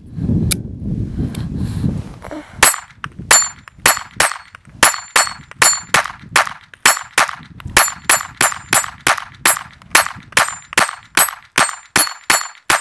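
9mm Polymer80-framed Glock 19 build firing a fast, even string of shots, about three a second, starting a couple of seconds in. Steel plate targets ring faintly after the hits.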